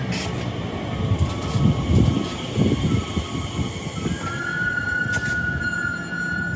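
Train running into the platform with a low rumble, its brakes squealing in a thin steady tone that steps up in pitch about four seconds in.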